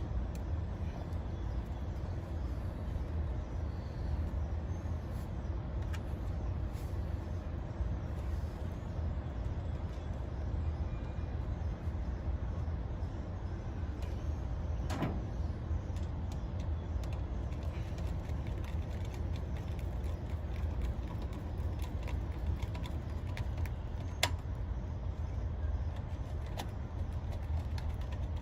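A steady low rumble, with a few sharp metal clicks and taps from hand work on a condenser fan motor's cover plate; the clearest clicks come about halfway through and again a few seconds before the end.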